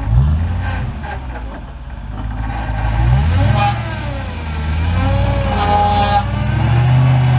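Off-road 4x4 engine revving hard under load, its pitch climbing sharply just after the start and again about three seconds in, then held high. A wavering higher-pitched sound rises and falls over it in the second half.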